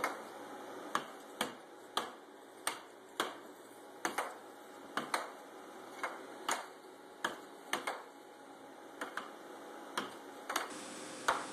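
Air hockey puck clacking against the mallets and rails of a Sportcraft Turbo Hockey table in an irregular rally of sharp clicks, about two a second, over a steady hiss.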